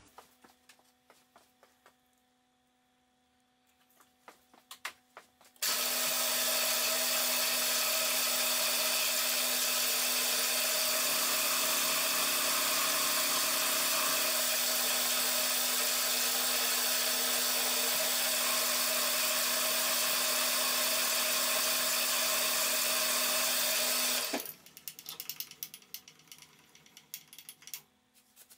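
Milling machine spindle starting about six seconds in and running steadily with an end mill machining a small metal block held in a vice, then stopping abruptly near the end. Faint clicks come before and after.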